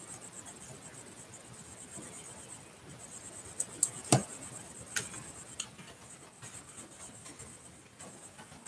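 A few sharp clicks and taps, about five within two seconds and the loudest just after four seconds in, over a faint steady high hiss.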